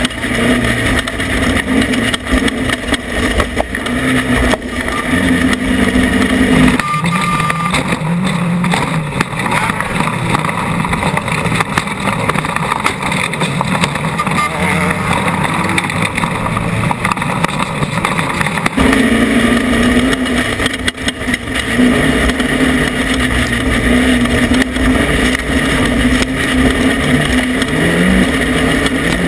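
Off-road race vehicle's engine running hard under way, with a continuous engine note mixed with driving noise. The note eases off about seven seconds in and comes back to full power around nineteen seconds.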